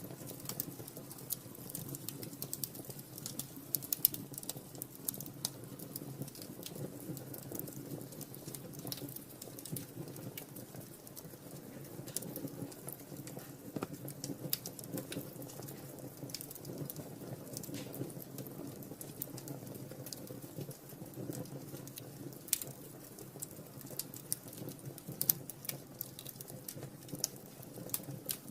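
Wood fire burning in a fireplace, crackling with frequent irregular sharp pops over a low steady rustle of the flames.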